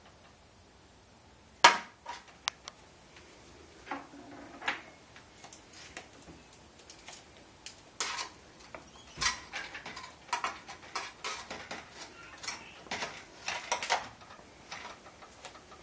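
Spatula and fork clicking and scraping against a metal baking pan while brownies are cut and lifted out: one sharp clack about a second and a half in, a few scattered clicks, then a busy run of clicks and scrapes in the second half.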